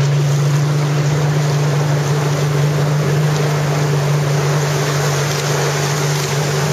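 A boat engine running at a steady speed, a constant low drone under rushing wind and water noise.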